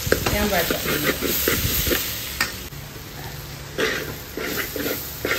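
A spoon stirring and scraping chopped onions and ground spices around a large aluminium pot in irregular strokes, over the steady sizzle of the masala frying in oil as it is sautéed.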